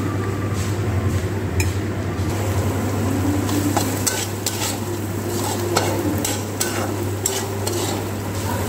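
Spoons and utensils scraping and clinking against metal plates in irregular light clicks, over a steady low hum.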